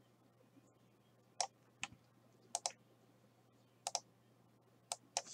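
Scattered sharp clicks at a computer, about eight in all, several in quick pairs, over a faint steady low hum.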